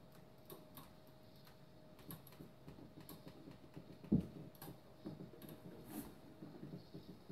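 Scattered clicks, knocks and rustles of a sit-to-stand patient lift and its sling being handled as a person is lowered into a recliner, with one louder thump about four seconds in. A faint steady hum runs underneath.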